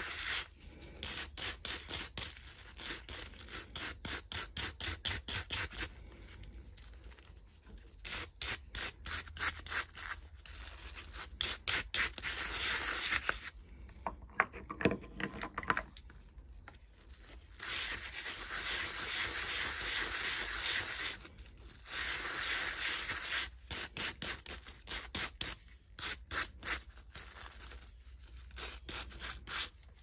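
Stiff-bristled hand brush scrubbing a rusty ring-shaped toy tractor part in soapy water. It comes in runs of quick back-and-forth strokes, about four a second, with short pauses and a few stretches of steadier scrubbing.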